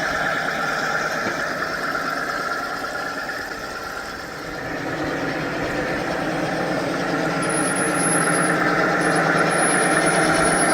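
Simulated diesel locomotive engine sound from the onboard speakers of large-scale model diesels (SD9s and a GP60) running steadily. It dips about four seconds in, then grows louder over the second half, with a high thin whine appearing near the end.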